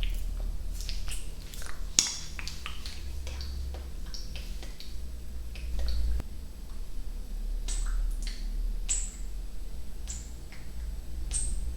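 ASMR mouth sounds close to the microphone: irregular wet tongue clicks and mouth pops, some with short high-pitched chirps, over a steady low hum.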